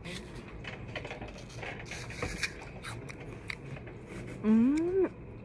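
Crisp crunching and chewing of a bite of fresh raw apple: a run of small sharp crunches. About four and a half seconds in comes a short hummed voice sound that rises and falls.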